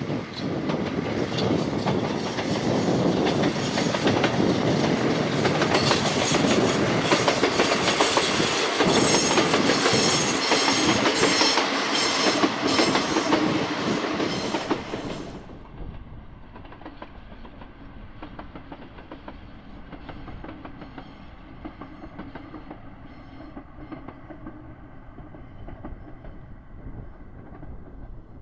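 A diesel regional railcar passes close by, its engine running and its wheels clacking over the rail joints, loudest between about six and fourteen seconds in. About fifteen seconds in the sound cuts to a much quieter, distant train running on the line, with light wind.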